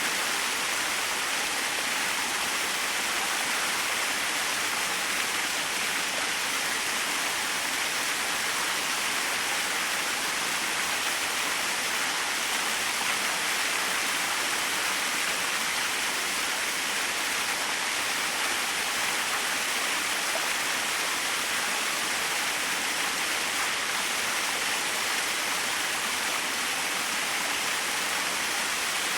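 Small waterfall splashing steadily: a constant, even rush of falling water, brightest in the upper range, with no changes or breaks.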